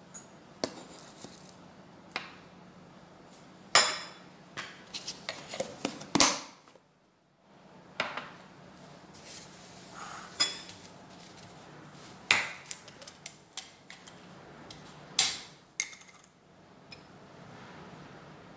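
A metal spoon clinking and scraping against a tin of oats and a ceramic bowl, with knocks of the tin and jug being set down: irregular clinks and knocks, a few of them loud.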